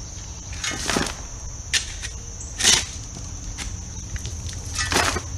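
Gravel scraped and crunched by a hand tool four times, the third stroke the loudest, as gravel is shovelled and spread. Crickets trill steadily underneath.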